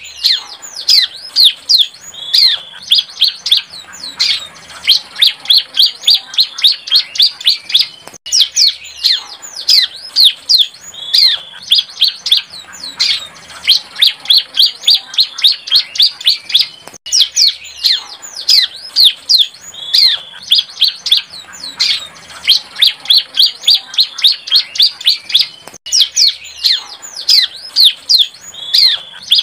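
Young bar-winged prinia (ciblek) singing a fast, continuous run of sharp, downward-slurred chirps, several a second, with a brief break about every nine seconds. It is a song of the kind played as a lure call to draw in or prompt other ciblek.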